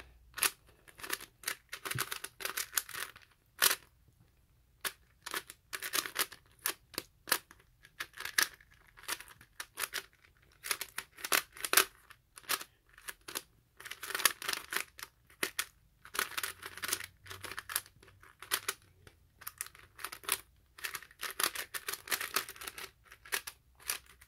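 LEGO-brick 3x3 puzzle cube being turned fast in a speed solve: quick runs of plastic clicks and scraping as the layers turn, broken by short pauses.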